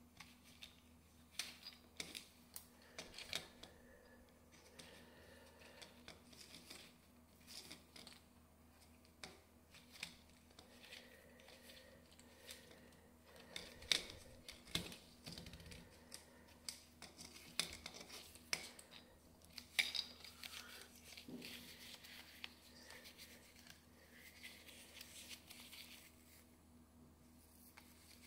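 Plastic vacuum brush roll being handled and worked on by hand: irregular sharp clicks, taps and short scrapes of hard plastic parts, quiet in between.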